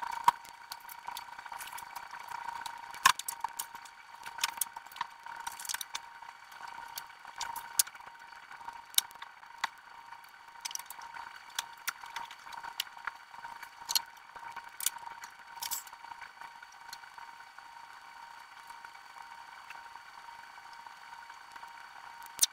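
Fast-forwarded workroom sound: a steady high-pitched hum with many short clicks and taps scattered through it.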